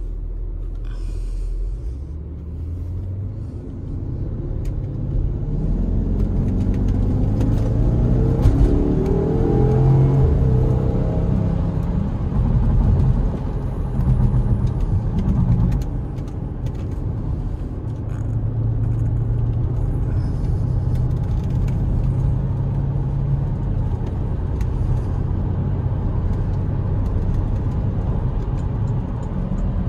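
Porsche Cayenne Turbo's twin-turbo V8 with factory sports exhaust idling, then pulling away from a standstill. The engine note rises for several seconds as it accelerates through the gears, then settles into a steady cruise.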